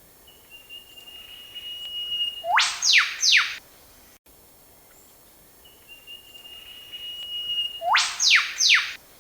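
An eastern whipbird pair duetting, twice. The male gives a long steady whistle ending in a sharp rising whip-crack, and the female answers at once with two quick falling notes, the 'choo-choo'.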